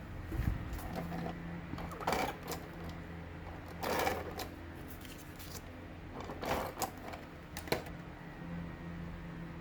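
Paper and stickers being handled on a desk while a journal page is decorated: four short rustles and scrapes over a steady low hum.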